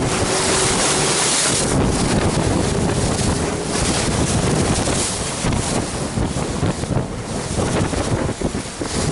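Wind buffeting the microphone over the rush and splash of sea water along the hull of a moving boat.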